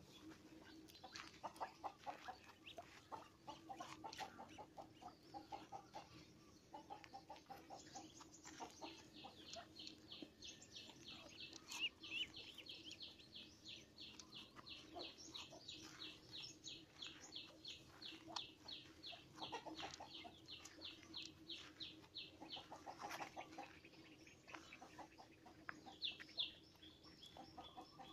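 A flock of ducks and ducklings calling faintly: scattered short low calls, and a long run of quick, evenly spaced high peeps from about nine seconds in until past the twenty-second mark.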